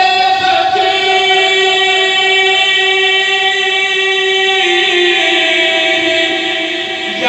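A man's voice singing one long held note of a devotional recitation (kalam) into a microphone, stepping down slightly in pitch about two-thirds of the way through.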